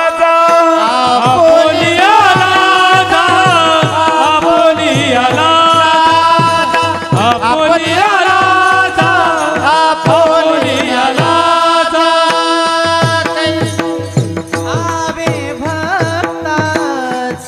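Warkari devotional song: a man sings a melody, held over a steady beat of brass hand cymbals (taal) clashing and a mridang drum.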